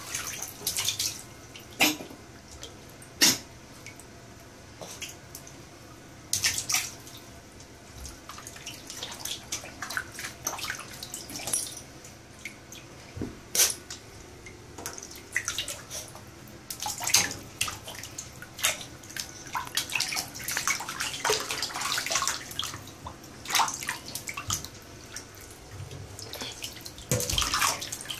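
Pembroke Welsh corgi puppy splashing about in shallow bathtub water, with irregular splashes and sloshing and a few sharper slaps of water.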